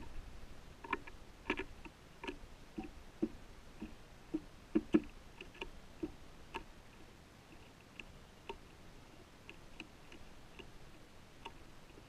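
Faint, irregular light taps and clicks, several a second at first with the loudest pair about five seconds in, thinning out over the last few seconds.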